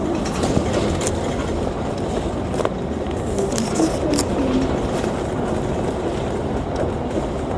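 Inside a double-decker bus on the move: a steady engine and road rumble with scattered rattles and clicks from the bodywork.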